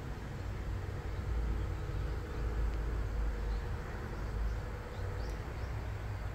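Outdoor ambience dominated by a steady low rumble, with a few faint high chirps about five seconds in.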